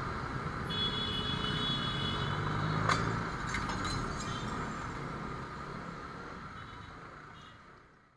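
Motor scooter riding in city traffic: steady engine and road noise. A high, steady tone sounds for about a second and a half shortly after the start, and there is a sharp click about three seconds in. The sound fades out near the end.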